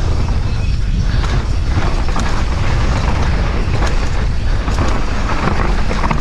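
Downhill mountain bike running fast over a dry, stony dirt trail. Tyres rumble over loose rock and the chain and frame rattle in a dense, irregular clatter over a steady low rumble.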